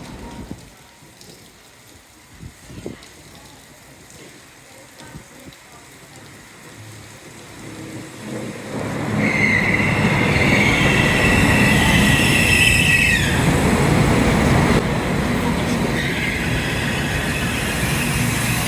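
A train coming in, quiet at first and then loud about nine seconds in, with a high-pitched wheel squeal for about four seconds as it runs past.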